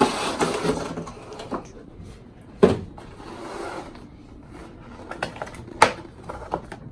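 Unboxing handling noise: a cardboard box scraping as it is slid open, then a clear plastic clamshell package rustling and knocking on a tabletop, with one sharp knock about two and a half seconds in and another sharp click near the end.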